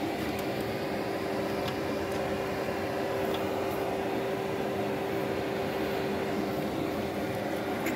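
A steady machine hum with one constant mid-pitched tone that does not change.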